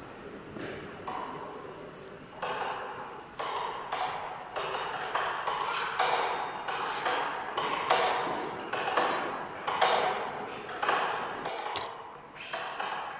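Clockwork mechanism of a steel-and-aluminium kinetic clock sculpture ticking: sharp metallic strikes roughly twice a second, each ringing briefly and fading in the room's echo.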